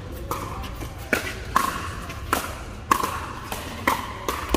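Pickleball paddles striking a hollow plastic pickleball in a fast rally: a string of sharp pops, each with a short ring, about six in under four seconds.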